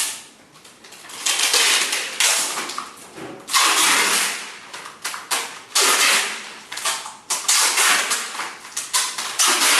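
Adhesive tape being pulled off the roll and wound around a folded screen door to bind it, in repeated noisy pulls each about a second long.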